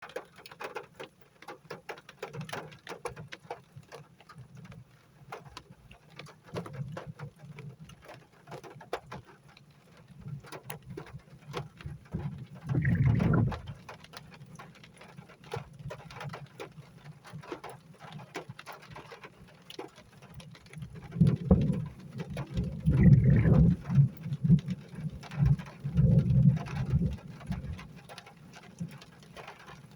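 Rain falling, drops pattering and ticking irregularly close by. Bursts of low rumble hit the microphone about halfway through and again for several seconds near the end.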